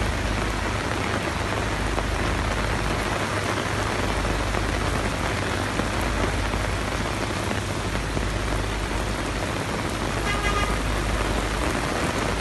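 Heavy rain falling steadily, with a brief high-pitched tone near the end.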